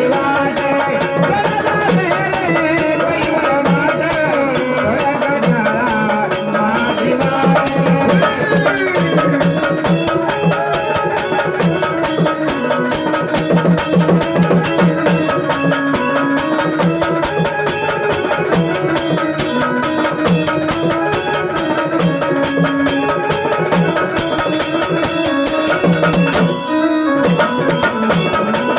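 Marathi gondhal folk music: a steady drum beat under a wavering melody line, with a momentary break near the end.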